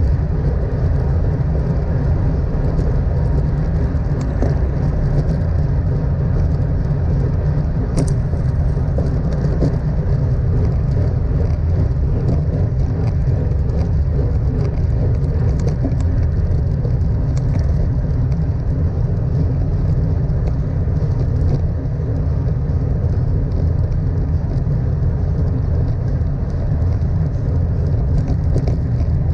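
Steady wind rush and buffeting on a GoPro Hero 6 Black's microphone, with tyre and road noise, from a road bike ridden at race speed. A brief click about eight seconds in.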